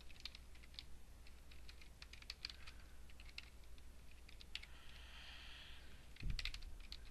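Faint typing on a computer keyboard: scattered, irregular key clicks, with a low thump about six seconds in.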